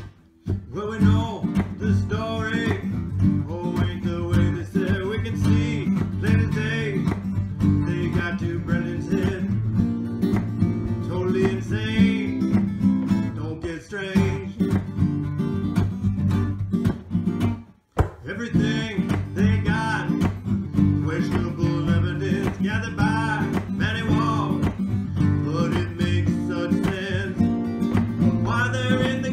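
Background music led by acoustic guitar, dropping out briefly just after the start and again about two-thirds of the way through.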